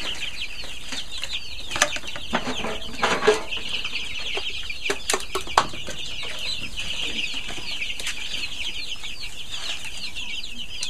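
Many chickens calling at once in a steady chorus of high, short cheeps, with a few sharp knocks about two, three and five seconds in.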